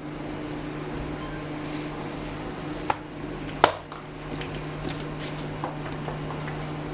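A steady low hum with a few sharp knocks, the loudest about three and a half seconds in.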